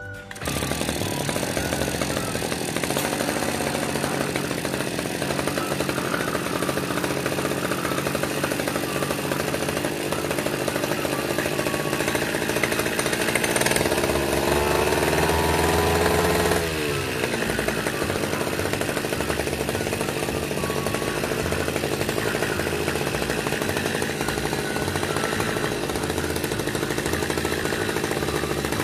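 Stihl backpack brush cutter's two-stroke engine running after being serviced. About halfway through it revs up for roughly three seconds, then drops suddenly back to idle.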